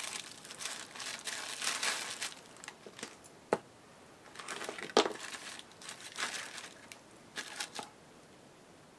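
Sheets of deli paper crinkling in short rustling bursts as they are handled and laid over book pages, with two sharp taps a second and a half apart near the middle.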